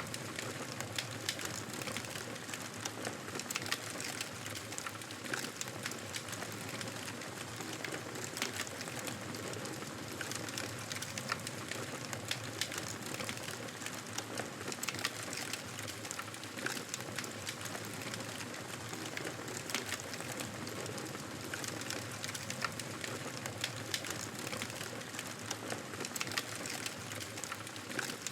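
Wood fire burning in a fireplace: a steady hiss of flames with frequent small, irregular crackles and pops from the burning logs.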